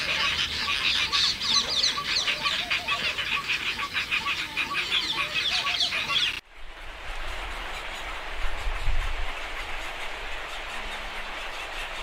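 A roosting colony of Asian openbill storks calling together, with low honking calls under dense, rapid higher chatter. About six seconds in, the calling cuts off abruptly. It gives way to a quieter steady hiss with a brief low rumble.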